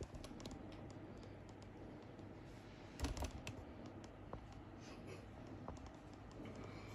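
Faint scattered clicks and light handling noise, with a short cluster of louder clicks about three seconds in, over a low steady hum.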